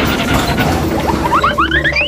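Background music with sound effects: a run of short rising whistle-like glides climbs higher and higher in the second half.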